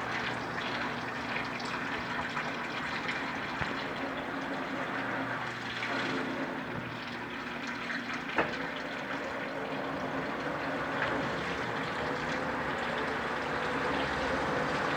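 Consul Facilite 9 kg washing machine running, with water rushing and sloshing in its tub throughout. There is a sharp click about eight seconds in, and a faint rising whine near the end.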